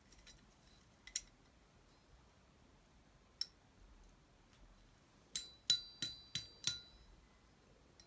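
Small steel engine parts clinking on a workbench: a few separate sharp clicks, then a quick run of five ringing metallic clinks about a third of a second apart, a little past the middle.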